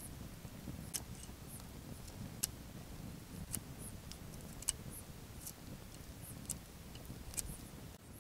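Wood campfire crackling: sharp, irregular pops about once a second over a low steady rumble.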